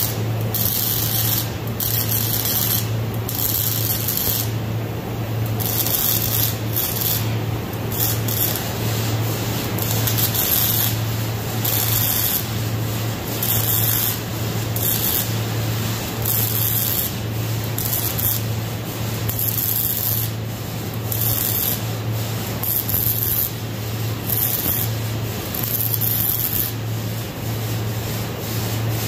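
Wire-feed (MIG) welding arc crackling and hissing steadily as a long weld is run on heavy steel plate, over a steady low hum.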